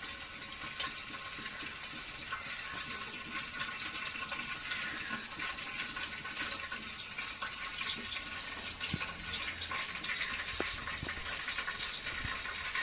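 Mustard seeds sizzling and crackling in hot coconut oil in an earthen pot, with a steady hiss and many small pops as the seeds splutter.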